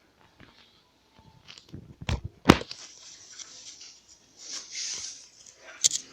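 Slime being handled while it is coloured: a couple of sharp knocks, the loudest about halfway, then crackling, squishy noise twice, with a click near the end.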